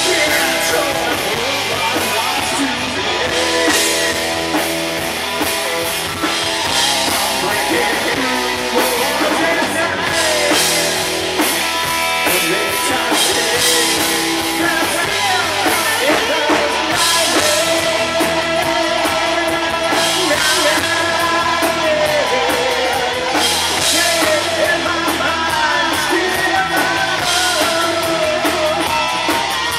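Live rock band playing loudly: distorted electric guitars, bass guitar and a drum kit with cymbals, with a singer's voice over them.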